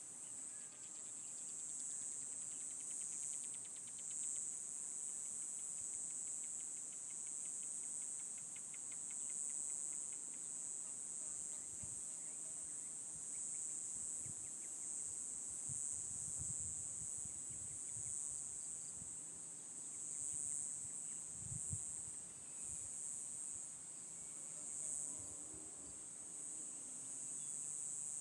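Steady, high-pitched chorus of insects that holds without a break, with a faint rapid ticking in the first part. A few soft low thuds come in the middle.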